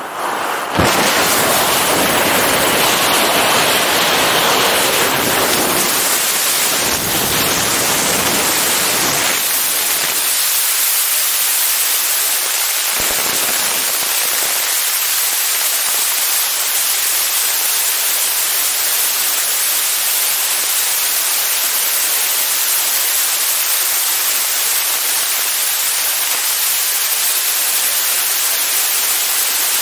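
Loud, steady rush of freefall wind over the camera's microphone during a wingsuit jump, rising suddenly about a second in as the jumper leaves the aircraft door. It is heavy and buffeting for the first ten seconds or so, then settles into an even hiss.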